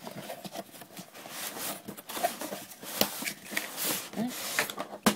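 Cardboard speaker box being opened and handled: rustling and scraping of the packaging, broken by several sharp clicks and knocks.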